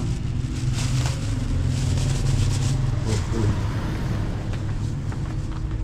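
A motor vehicle running on the road: a steady low engine and road rumble. A faint voice is briefly heard about three seconds in.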